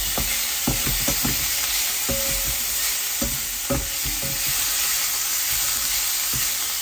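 Cubes of beef sizzling in a nonstick frying pan as a wooden spatula stirs them, with a steady hiss and repeated knocks of the spatula against the pan, most of them in the first four seconds.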